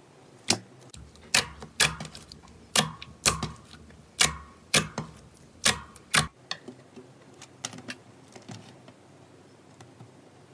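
Glossy slime being pressed and folded by hand, giving a string of sharp, wet pops and clicks a little under two a second for about six seconds, then only faint small crackles.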